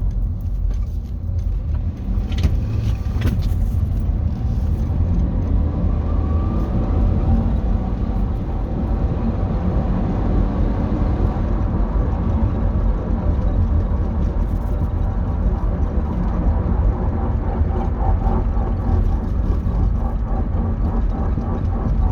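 2008 Dodge Grand Caravan on the move, with a steady low drivetrain and road rumble and a faint rising whine about six seconds in. This is the grinding the owner is chasing. It remains after a new right-side drive axle, and he wonders whether the differential bearings in the transmission are at fault.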